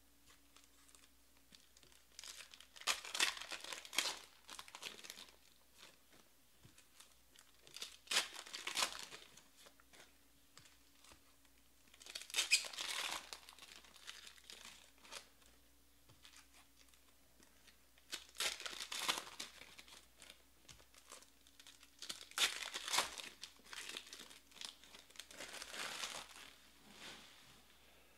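Foil trading-card packs being torn open and crinkled by hand, in about half a dozen crackling bursts a few seconds apart.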